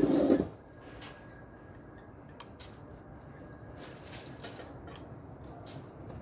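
A loud low noise in the first half-second, then soft, scattered clicks as the small plastic battery box of a string of ball lights is handled.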